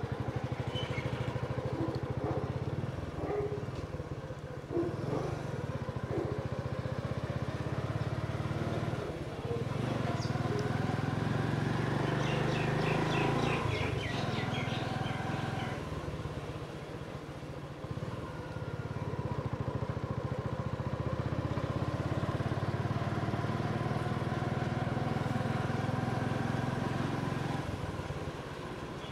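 Honda motorcycle engine running steadily at low riding speed, easing off briefly about two-thirds through and again near the end. A rapid high chirping sounds briefly about halfway through.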